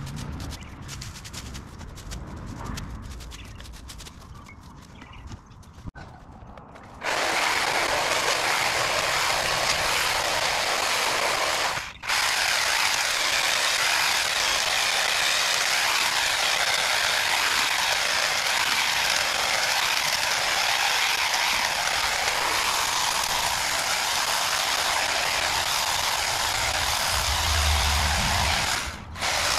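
Clippings and leaves rustle as they are gathered by hand off the lawn. About seven seconds in, a battery-powered Husqvarna hedge trimmer starts with a steady, loud buzz of reciprocating blades cutting through the hedge. It stops for a moment twice, once around twelve seconds in and once near the end.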